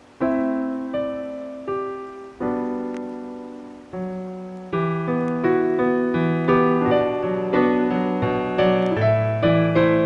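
Background piano music: a few slow chords, each left to ring and fade, then from about five seconds in a steadier run of notes, roughly two a second, over a bass line.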